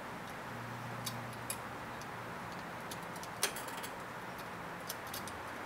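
Scattered small clicks and ticks as the clamp of a rear bike luggage rack is hand-tightened onto the seat post, the sharpest click about three and a half seconds in, over a faint steady hiss.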